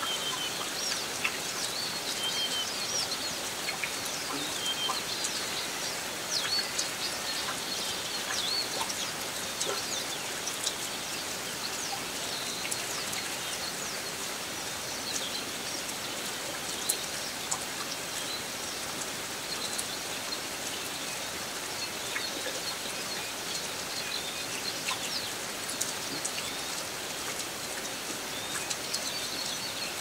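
Steady rain falling, with small birds chirping and calling through it in short notes and a few sharp close drips.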